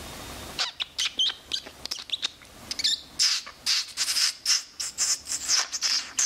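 Small birds chirping: quick runs of short, high calls, some gliding up and down in pitch, starting about half a second in.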